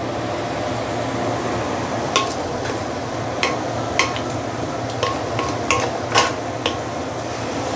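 Chicken pieces in soy sauce, oyster sauce and Shaoxing wine sizzling steadily in a stainless steel wok on a freshly relit hob. From about two seconds in, a wooden spatula stirring them knocks and scrapes against the metal pan in a string of sharp clicks.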